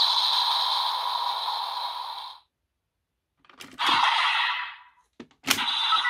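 A DX Command Twin Buckle toy belt's electronic sound effect, a steady hiss, cuts off after about two and a half seconds. Then come plastic handling clicks, a short noisy burst, and a sharp snap near the end as a part is clicked into place, after which the belt's next sound starts.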